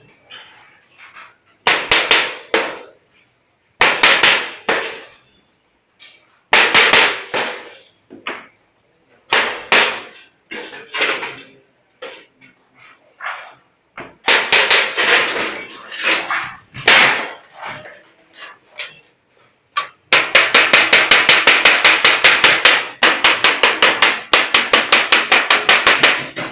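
Hammer striking a galvanized sheet-metal fitting along its folded edge. For most of the time the blows come in bursts of two or three with pauses between. From about twenty seconds in they become a fast steady run of about five blows a second.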